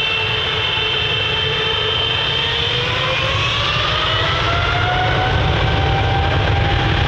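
Boeing 777's GE90 turbofan engines spooling up for takeoff: a steady loud jet roar with whining tones that rise slowly in pitch as thrust comes up.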